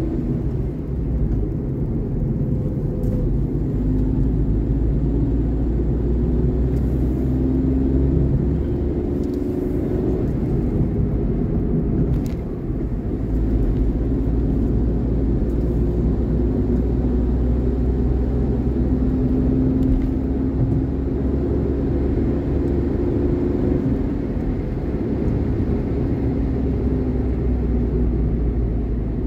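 Road vehicle under way: a steady low rumble of engine and road noise, with an engine note that drifts slightly up and down.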